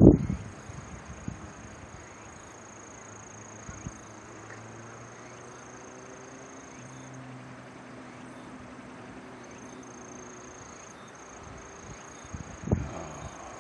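Steady, high-pitched drone of insects with a faint low hum underneath. A sharp low thump at the very start and another near the end.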